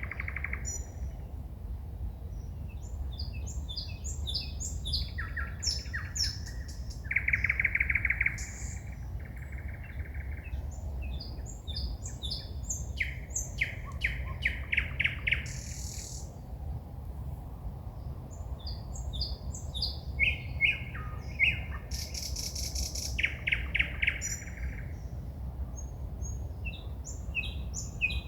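Songbird singing at night: a varied song of short phrases, rapid trills and runs of loud repeated notes, separated by brief pauses, over a steady low background rumble.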